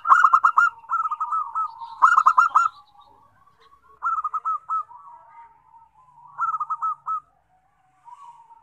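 Zebra doves (perkutut) cooing: quick, staccato, bubbling phrases of several notes each. The phrases come five times, loudest in the first three seconds, with fainter, lower cooing between them.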